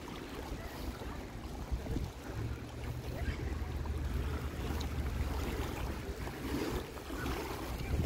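Small lake waves lapping and splashing against shoreline rocks, with wind rumbling on the microphone, heavier for a few seconds in the middle.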